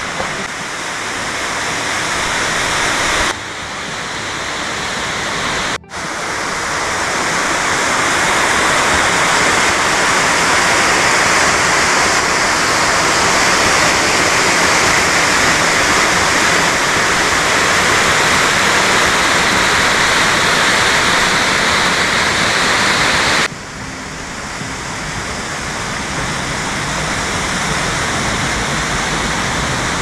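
Moara Dracilor waterfall rushing, a loud, steady roar of falling water. It cuts out briefly about six seconds in, and is loudest from there until about twenty-three seconds in.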